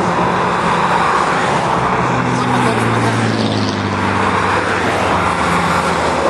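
Steady roadside traffic noise from passing cars, with one vehicle's engine hum standing out from about two to four seconds in.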